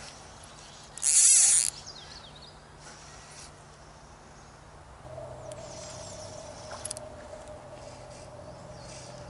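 Outdoor ambience by a creek: a loud, brief high-pitched call about a second in, fainter high chirps, and a steady droning tone that starts about halfway through and keeps going.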